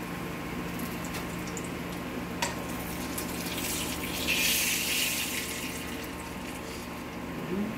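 Oil sizzling in a frying pan as bread-wrapped mango pies fry, over a steady low hum. Metal tongs click once about two and a half seconds in, and the sizzle swells louder for a couple of seconds around the middle as a pie is lifted and turned in the oil.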